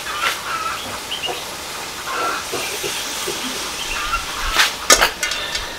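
Steady hiss of a steaming, simmering pot of fish on the stove, with two sharp knocks close together a little before the end.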